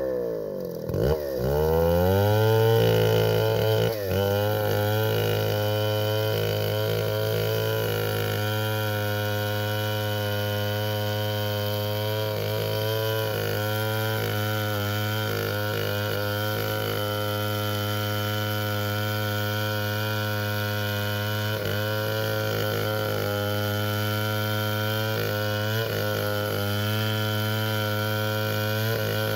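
Stihl 070 two-stroke chainsaw engine running. Its pitch drops over the first two seconds, then holds steady with a few brief dips.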